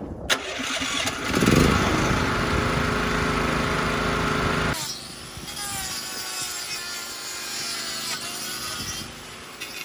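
A motor-driven machine running loudly with a steady hum, dropping sharply to a lower, quieter running noise about five seconds in.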